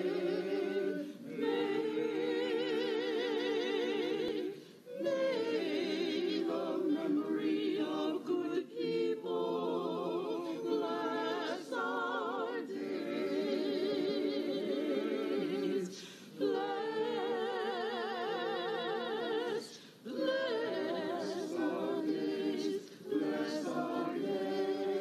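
Mixed choir of men's and women's voices singing a cappella in English and Hebrew, in phrases broken by a few short pauses, the voices wavering with vibrato.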